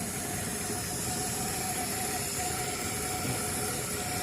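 Mitsubishi vehicle's engine idling steadily, with a hiss over it and a faint steady whine.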